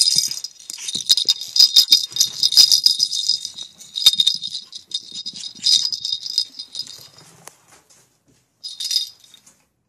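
Small pet-toy ball with a bell inside jingling and rattling as it is knocked about, busy for the first few seconds, then in shorter bursts, with one last brief jingle near the end.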